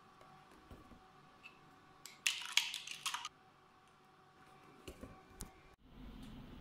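Liquid poured from a carton into a glass jar: a short burst of splashing and carton rustle about two seconds in, then faint clicks.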